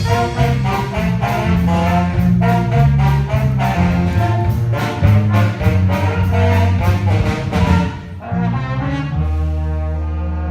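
High school band playing a brassy, up-tempo passage over a steady percussion beat; about eight seconds in it breaks off, and a slow, held low chord begins.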